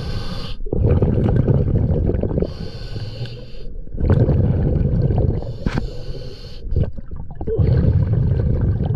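Scuba diver breathing underwater through a regulator: about four hissing inhalations, each followed by a rumbling burble of exhaled bubbles.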